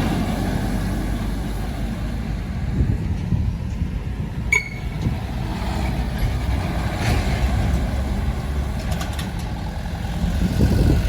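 UD Quester truck's diesel engine running steadily under load, with a short sharp click about halfway through.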